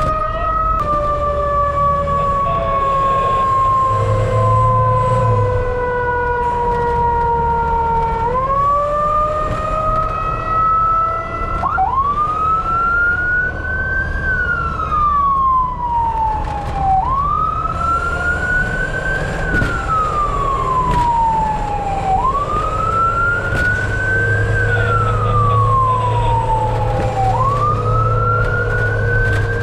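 Fire truck siren wailing. Its pitch rises quickly and falls slowly, about once every five seconds, with a second, lower siren tone underneath and a low engine rumble.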